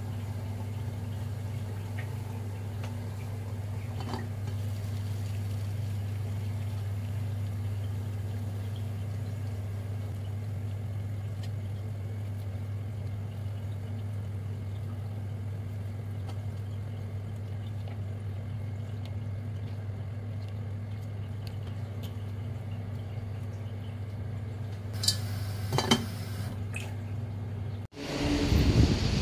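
Steady low hum of an induction cooktop heating a pot of water, with faint water sounds and a few small clinks; about twenty-five seconds in, a short clatter of sharp knocks. Near the end the sound cuts off suddenly and gives way to outdoor wind noise.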